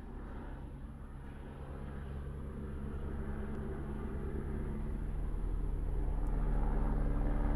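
Jet aircraft approaching overhead, its low engine rumble growing steadily louder.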